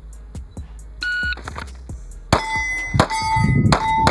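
Electronic shot timer gives one short beep about a second in; then a pistol fires a quick string of about three shots, each followed by steel plate targets ringing.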